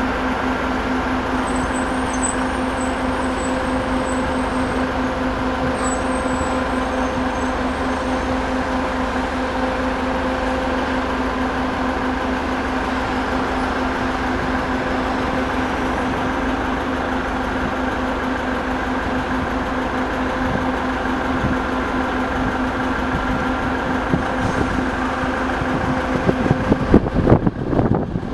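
A large engine running steadily, with a constant droning hum. Near the end it gives way to louder, uneven rumbling.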